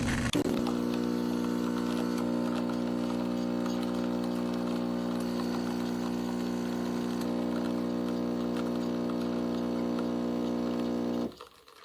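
Empstorm 20-bar espresso machine's pump running with a steady electric hum, then cutting off suddenly near the end.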